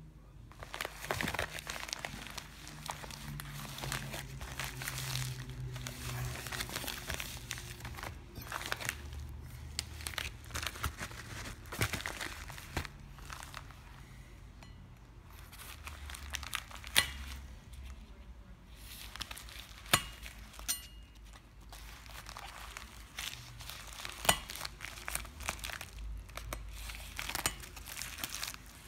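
Padded bubble mailer being cut and torn open by hand with a knife: a continuous crinkling and tearing of paper and bubble-wrap lining, with a few sharp clicks in the second half.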